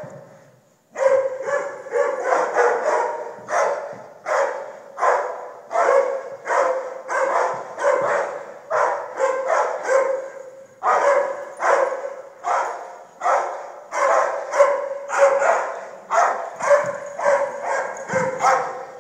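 Dog barking over and over in a steady run, about two barks a second, starting about a second in. Each bark echoes briefly.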